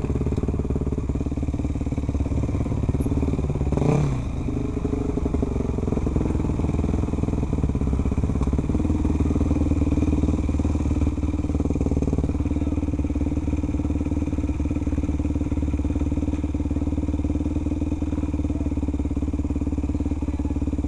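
Yamaha enduro motorcycle engine running steadily at a low, even speed, with a brief knock and a short change in engine pitch about four seconds in.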